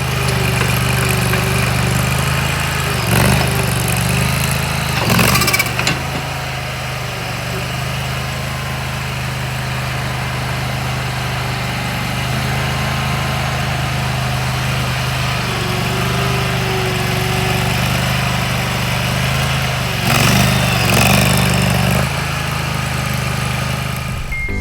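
2024 AGT KTT23 mini skid steer's engine running steadily. It gets briefly louder and rougher a few seconds in and again about 20 seconds in.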